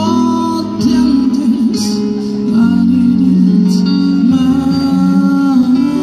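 Live rock band playing loudly: electric guitars, bass, keyboard and drums under a male lead singer, with held notes and sustained chords.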